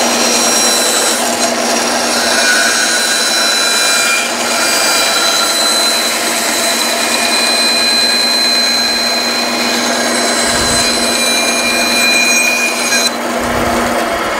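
Bandsaw running and cutting through a hardwood spoon blank: a steady motor hum and blade whine over the rasp of the cut. Near the end the higher cutting noise drops away as the blade comes through the wood.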